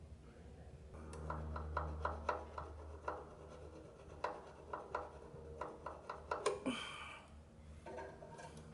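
A thin points file rasping between a magneto's contact-breaker points, a string of faint, short, irregular scraping strokes, filing corrosion off the points.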